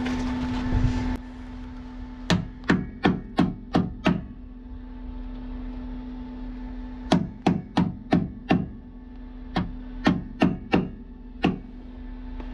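MIG welding crackle that stops suddenly about a second in, then a hammer tapping the welded steel body panel in three quick runs of five or six ringing blows, over a steady hum.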